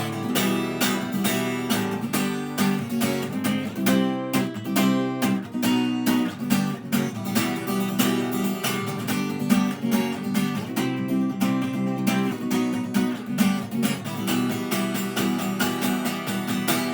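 Acoustic guitar strummed in a steady, even rhythm, playing the song's closing chords without vocals.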